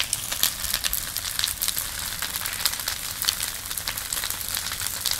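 Large bonfire burning hard: a steady hiss with a dense, irregular run of sharp crackles and pops.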